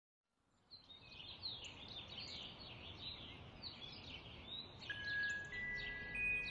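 Many small birds chirping and twittering in quick, overlapping calls, fading in from silence. About five seconds in, soft sustained chime-like music notes begin over the birdsong.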